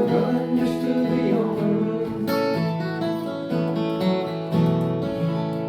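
Acoustic guitar strumming the closing chords of a folk song, the last chords left to ring and slowly fade near the end.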